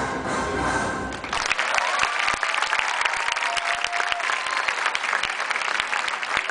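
Gymnastics floor-exercise music ends about a second in, then the arena audience applauds steadily, with a few whistles over the clapping.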